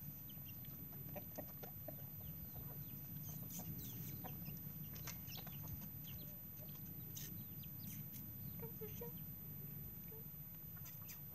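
Chickens and chicks feeding close by: many short, high peeps scattered throughout and a few soft, lower clucks, over a steady low hum.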